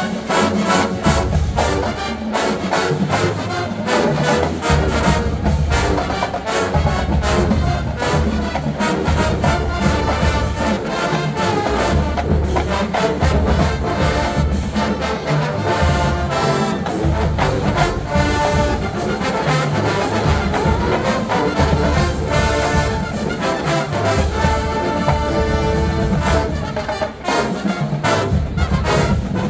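Marching band playing: brass section sustaining loud chords over a steady pulse of drums.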